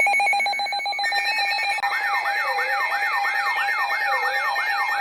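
Electronic alarm tones: a rapidly pulsing steady tone, joined about two seconds in by a fast siren yelp sweeping up and down about three times a second over a held tone, with a slower falling wail beneath it.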